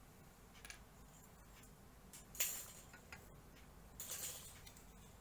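Small plastic model-kit parts being handled: a few light clicks, a sharper click about two and a half seconds in, and a short rustle near four seconds.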